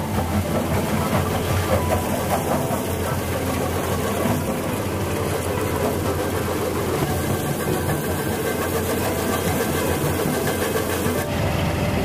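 Rock-crushing plant machinery running: a steady low drone with constant irregular rattling and knocking of stone moving through the crushers and feeders. The sound changes abruptly near the end.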